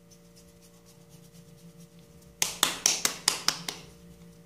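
Hands rolling a ball of corn masa between the palms: soft rubbing, then a quick run of about seven slaps of the dough against the palms just after two seconds in.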